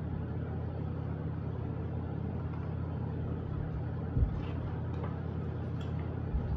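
Steady low background hum, with two soft low thumps, about four seconds in and near the end, as a hardcover picture book is handled and closed.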